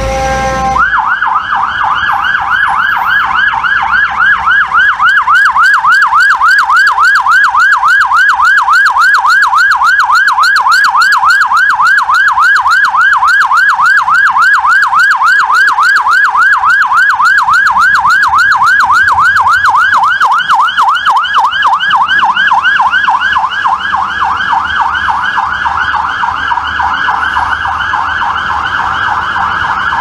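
Fire engine's siren in a fast yelp, a rising-and-falling tone repeating several times a second. It starts about a second in and keeps on steadily.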